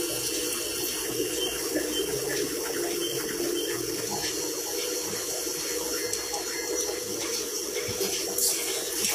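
Steady rushing, hissing noise of tyre-factory machinery, with a constant low hum underneath.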